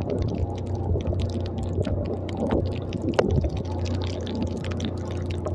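Small motorcycle engine running steadily at low speed over a muddy, rutted dirt track, with frequent short knocks and rattles from the bumps.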